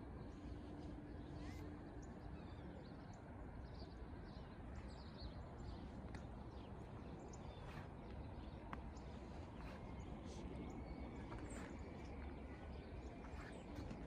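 Outdoor city-park ambience: a steady low rumble of the surrounding city with scattered short bird chirps.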